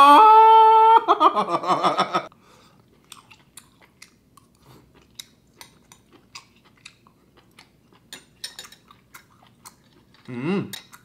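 A woman's voice drawing out a word for about two seconds. Then comes quiet mouth-chewing with faint scattered clicks as she eats chewy stir-fried pork intestine with ginger, and a short vocal sound near the end.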